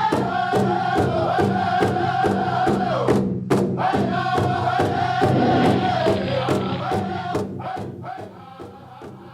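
Drum beaten in a steady beat, a little over two strokes a second, under group chanting in long held notes. The voices pause briefly about three seconds in, and everything fades out near the end.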